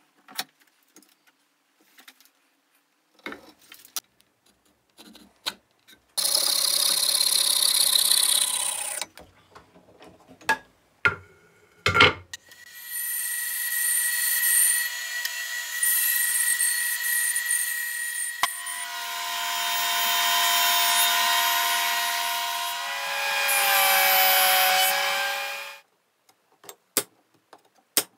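Workshop woodworking sounds. First a few clicks and knocks as a bench vise is tightened on a wooden strip, then a power saw runs for about three seconds. A bandsaw then runs and saws wood for about thirteen seconds, its tone changing partway through, and a few light ticks follow.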